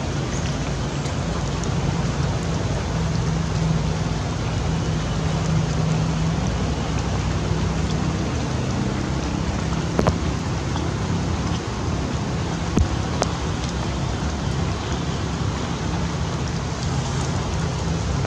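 Steady rain falling, an even hiss of drops, with a few sharp single ticks about halfway through and again a few seconds later.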